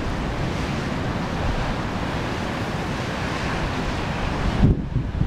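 Wind buffeting the microphone in gusty low rumbles over a steady rushing hiss, which drops away briefly near the end.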